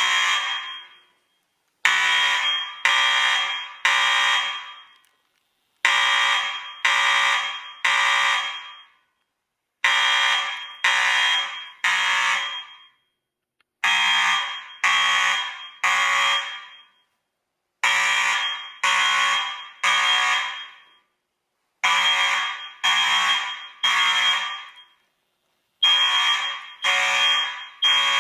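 Fire alarm sounding in the three-pulse evacuation pattern: three tones about a second apart, each starting sharply and fading, the group repeating every four seconds. It was set off from a break-glass manual call point.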